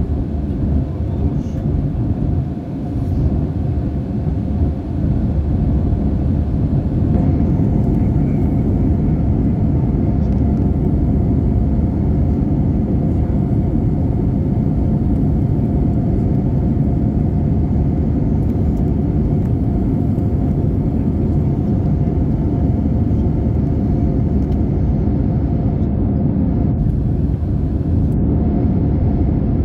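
Steady, deep cabin drone of an Airbus A320 in flight, heard from inside the cabin: jet engine noise and rushing airflow, even throughout, with a faint steady hum over it.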